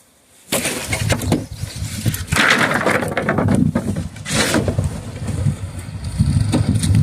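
Strong gusting wind buffeting the microphone. It starts suddenly about half a second in, with a deep rumble and hiss that surge and ease several times.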